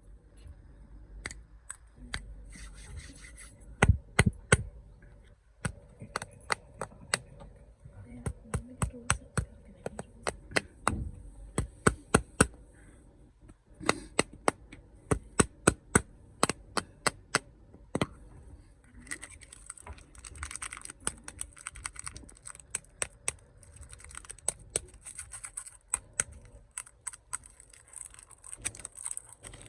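Snack packaging being handled and unwrapped: many sharp taps and clicks on the packaging, with stretches of crinkling wrapper noise about three seconds in, around twenty seconds in and near the end.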